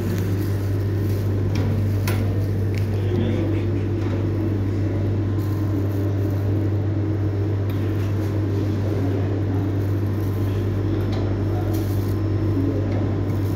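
Steady low machine hum running throughout, with a few faint clicks about two seconds in.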